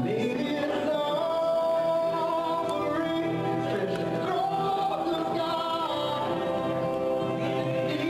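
Gospel song: a voice singing long held notes over steady instrumental backing.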